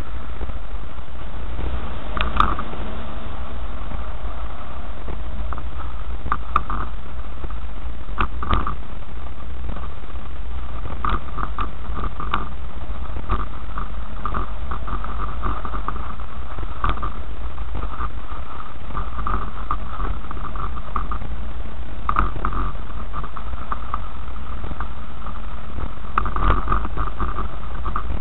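A car driving slowly over a rough dirt track, heard from inside: a steady low rumble with frequent short rattles and knocks as it goes over bumps.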